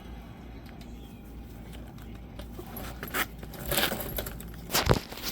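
Scattered light metallic clinks and rattles from objects being handled, with a sharper knock near the end.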